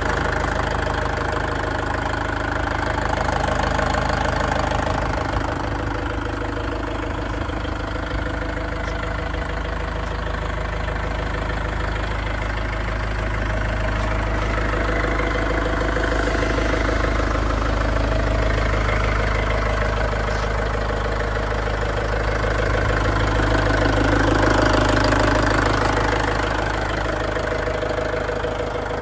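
Diesel engine of a Plus Power VTDD-25 forklift idling steadily.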